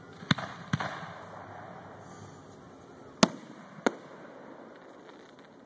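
Aerial fireworks shells bursting: four sharp bangs, two close together within the first second and two more a little over three seconds in, each trailing off in a short echo. The third bang is the loudest.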